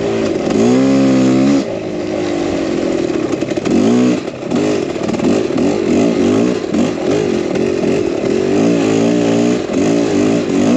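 Dirt bike engine revving up and down under the rider's throttle on a rough trail, its pitch rising and falling every second or so. It is briefly held steady at a higher pitch, and the throttle is chopped shortly about 1.5 s in and again about 4 s in.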